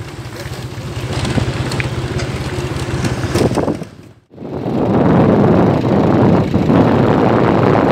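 Vehicle engine running steadily on the move, with road noise. The sound cuts out briefly about four seconds in, then comes back louder with wind buffeting the microphone.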